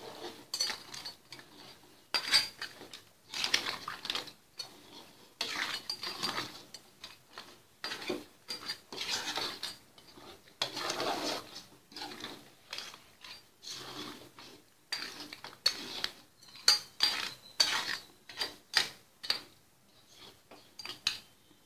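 A metal ladle stirring crab pieces through thick curry in a large metal pot, in a run of short, irregular scrapes and knocks against the pot.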